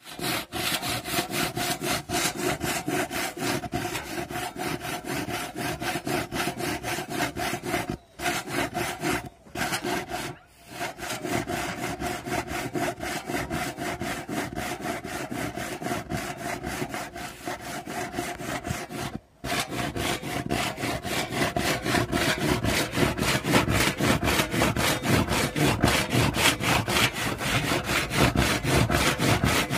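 Handsaw cutting across a weathered wooden plank in fast, even strokes, about four a second, stopping briefly a few times and growing a little louder in the second half.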